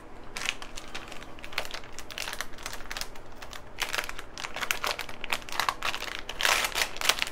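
Plastic bag crinkling and rustling in irregular bursts as a circuit board is stuffed back into it.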